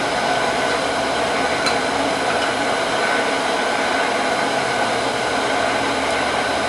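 Wood lathe running steadily, its motor and spinning walnut blank giving an even whir with a constant hum.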